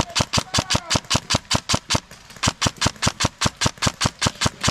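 Airsoft gun firing rapidly on full auto, about six or seven sharp shots a second, with a brief pause about two seconds in.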